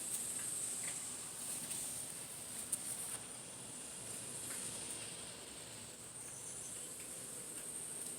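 Steady high-pitched insect buzzing, with a few faint clicks.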